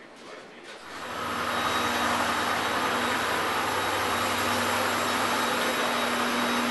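Jet aircraft turbine noise on the ramp: a steady rush with a constant hum and a higher whistle. It comes up quickly about a second in and then holds steady.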